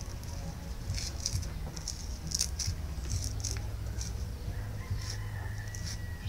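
Dry scratching and rustling of frayed cord fibres being rubbed and pulled apart between the fingers, in a string of short bursts, over a low steady hum.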